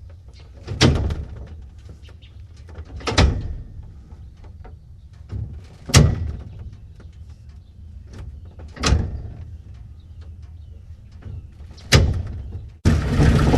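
An old car's door being shut, five solid slams two to three seconds apart, each ringing out briefly over a low steady rumble. Near the end a loud, steady engine-like running noise cuts in abruptly.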